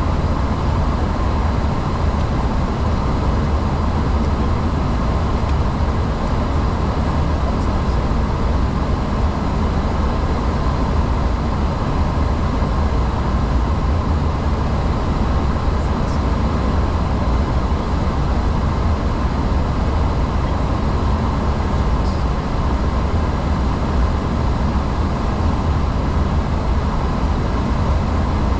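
Flight-deck noise of an Airbus A340-600 under departure power: a steady rush of air with a deep, even drone underneath, unchanging throughout.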